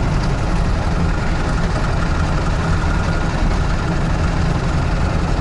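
UAZ-469 engine running steadily after losing all oil pressure. The owner suspects a spun bearing shell.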